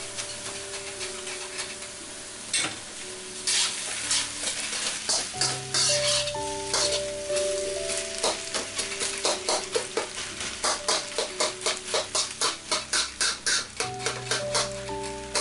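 Rice frying in a metal wok, a steady sizzle with a metal spatula scraping and knocking against the pan as the rice is stirred and tossed. The strokes start a few seconds in and quicken to a regular rhythm of about three a second.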